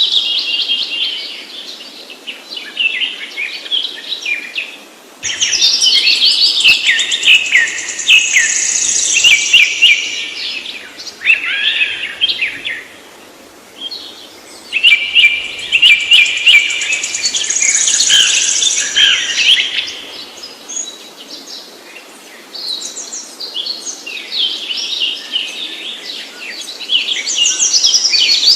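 A songbird singing long phrases of rapid, varied notes, each lasting several seconds, with short pauses between them.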